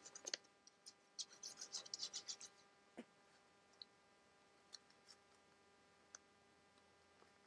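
Faint scratching strokes of a pen coloring on paper, a quick run of them about a second in, followed by a few light ticks and otherwise near silence.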